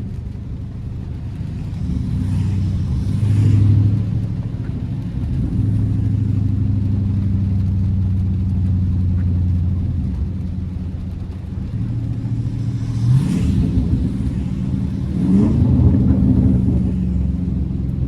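Dodge Charger Scat Pack's 392 (6.4-litre HEMI V8) engine heard from inside the cabin with the windows up, cruising with a steady low drone, then revving up in pitch twice in the second half.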